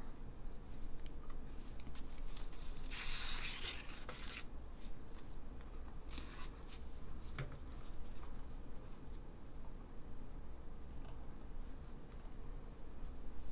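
Handling noise: crinkly rustles of thin plastic disposable gloves and light taps as silicon wafers are swapped on a table, with one longer crinkling rustle about three seconds in.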